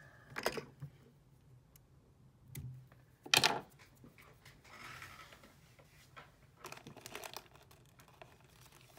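Scattered short rustles and crinkles of hands handling fly-tying thread and tools at the vise, the loudest about three and a half seconds in, with quiet stretches between.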